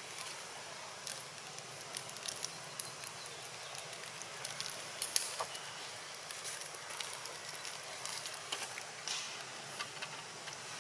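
Faint outdoor ambience: a steady hiss with irregular small clicks and crackles scattered throughout, one sharper click about five seconds in.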